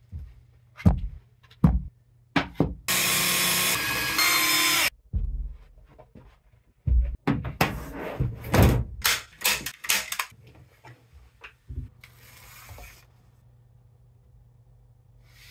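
Knocks and thuds of shelf parts being handled and fitted. Early on, a power tool runs steadily for about two seconds. About halfway through comes a flurry of knocks and rubbing.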